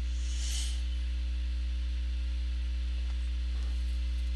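Steady electrical mains hum, a low drone with a row of higher overtones, running unchanged under the recording. A brief soft hiss comes about half a second in.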